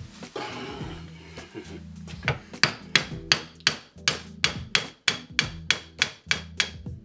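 Hammer striking the bushing eye of an Alfa Romeo 105 front suspension control arm clamped in a vise: a steady series of sharp blows, about three a second, starting a couple of seconds in. Before the hammering there is a brief scraping rub.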